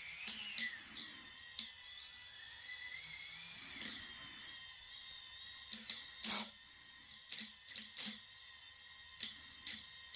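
FPV quadcopter's brushless motors whining, the pitch sliding up and down with throttle for about four seconds, then a string of short, sharp bursts of noise. These are the strange motor sounds at higher stick inputs whose cause the owner cannot find.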